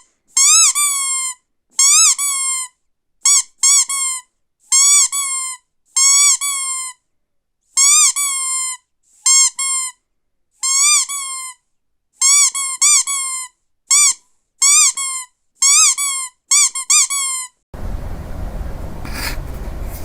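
A series of about twenty short, high squeaks, each rising then falling in pitch, repeated with brief silent gaps. Near the end they stop and give way to steady room noise.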